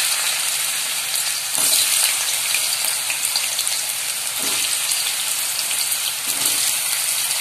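Cubes of raw banana and potato sizzling steadily in hot oil in a kadai, with a few brief swells as more pieces are dropped in.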